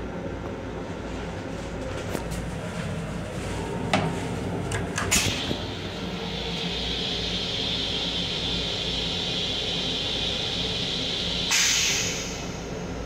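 Flush cycle of an M7 commuter railcar toilet: a couple of knocks about four and five seconds in, then a steady hiss for about six seconds that ends in a louder rush near the end. The train's low rumble runs underneath.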